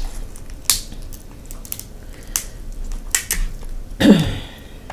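Close-miked eating and food-handling sounds: scattered sharp clicks and crackles as king crab is pulled apart. A louder, short wet sound comes about four seconds in.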